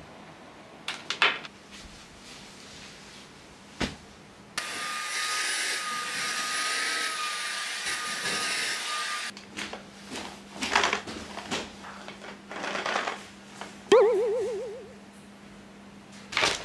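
Cordless stick vacuum cleaner running steadily on a rug for about five seconds, a hiss with a high whine, starting and stopping abruptly. A few knocks come before it and scattered brushing sounds after it, and a loud, short warbling tone sounds near the end.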